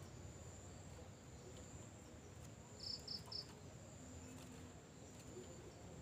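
Quiet background with a steady high-pitched insect drone, and three short high chirps in quick succession about three seconds in.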